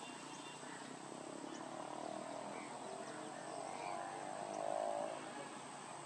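Quiet wetland ambience with faint bird calls and a steady high whine, while a distant motor drone swells in the middle and fades out shortly before the end.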